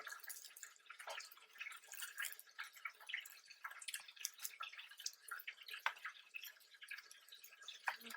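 A person chewing food close to the microphone: a steady run of quick, wet mouth clicks and smacks.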